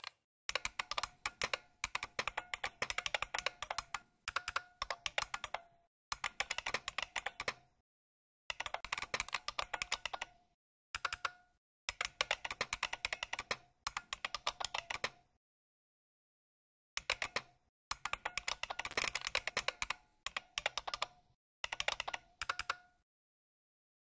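Emulated keyboard sound from bucklespring, which plays recorded IBM Model M buckling-spring key clacks in time with real typing. Fast runs of clacks lasting one to three seconds are separated by short gaps of complete silence.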